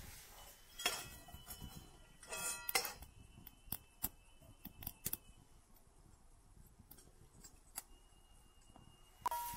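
Twig fire crackling with sharp pops in a small folding metal wood stove. A carbon steel frying pan clinks and rings briefly against the stove's metal frame, about two and a half seconds in and again near the end.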